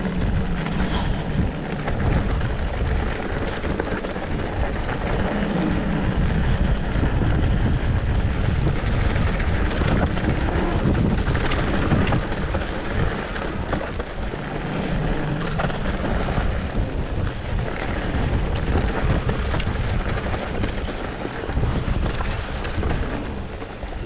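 Wind buffeting a camera microphone at speed, mixed with the tyre and rattling frame noise of a mountain bike running down a dirt downhill trail. It is loud and uneven throughout and eases off near the end.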